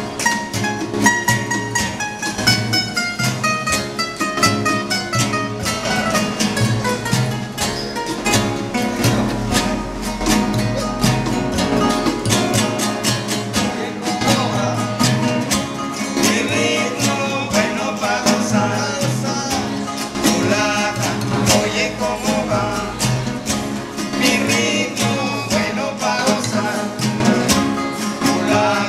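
Two acoustic guitars strummed and picked together in a lively rhythm. Singing voices join in about halfway through.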